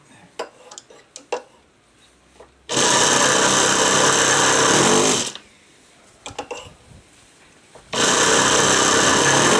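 Electric starter spinning a Saito FA-65 four-stroke glow engine on a model plane, in two steady bursts of about two and a half seconds each with a short pause between. The engine shows a slight response but does not keep running.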